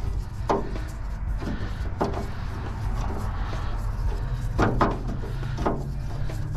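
Screwdriver working a screw in a sheet-metal electrical panel: a few scattered metal clicks and scrapes as the tool turns and shifts, over a steady low hum.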